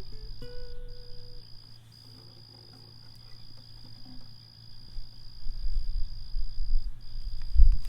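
A steady, high-pitched insect trill with a few brief breaks. A few closing notes of music end in the first second and a half, and a low rumble on the microphone builds over the last few seconds.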